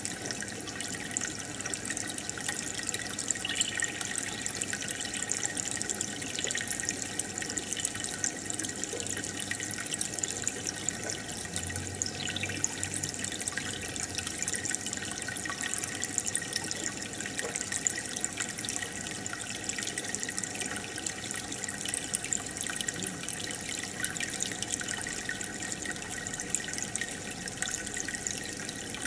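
Aquarium water bubbling and trickling steadily, with a constant crackle of small air bubbles breaking at the surface from the tank's aeration.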